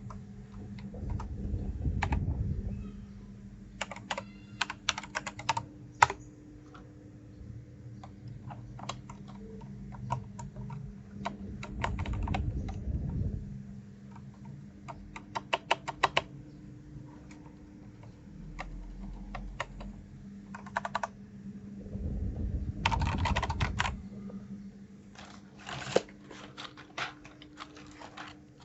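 Typing on a mechanical keyboard fitted with new keycaps: bursts of rapid keystroke clicks with pauses between them. Three times a low rumble swells up under the typing, and a faint steady hum runs beneath.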